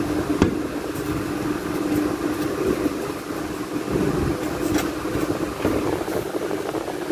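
A steady mechanical hum and hiss with an unchanging low tone, broken by a couple of faint ticks.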